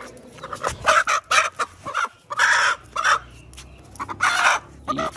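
Chickens squawking and clucking in a string of short, loud calls.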